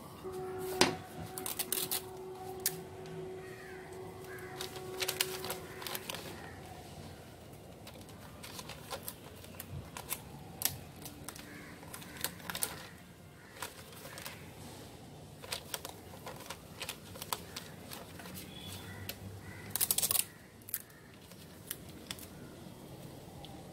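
Scattered sharp clicks and taps of a wooden screen-printing frame and paper sheets being handled as a card is lined up under the screen, with a quick run of clicks near the end. A faint steady hum lasts through the first few seconds.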